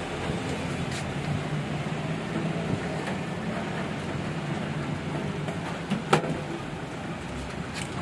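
Steady low hum of street traffic, with one sharp click about six seconds in.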